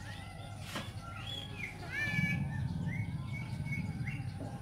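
A bird chirping with repeated short whistled notes. There is a single click just under a second in, and a low rumbling noise starts about two seconds in.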